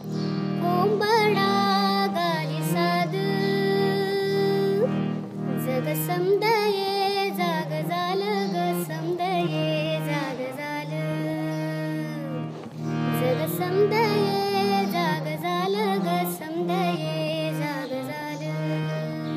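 A song: a harmonium holds steady chords that change now and then, under a voice singing a winding melody.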